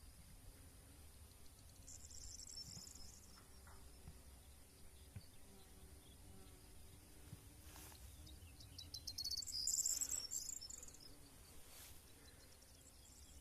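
Insects trilling in fast, high-pitched pulsed bursts, faintly: one bout about two seconds in and a louder one past the middle.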